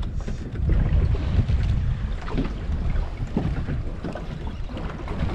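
Wind buffeting the microphone aboard a fishing boat at sea: an uneven low rumble with faint scattered ticks and knocks.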